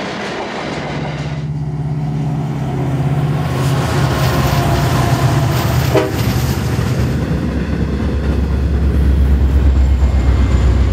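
Heavy iron ore trains passing close by: diesel-electric locomotives drone at a steady pitch over the roll of loaded ore wagons on the rails. About halfway through, a lower and louder engine drone takes over as another locomotive comes by.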